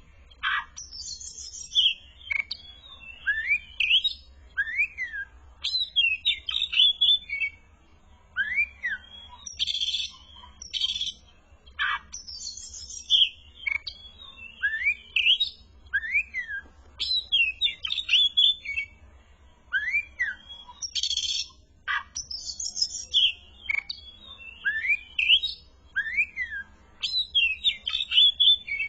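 Oriental magpie-robin (kacer) singing continuously and vigorously: short whistled notes that slur up and down, alternating with harsh, buzzy chattering phrases. The same run of phrases comes round again about every ten seconds.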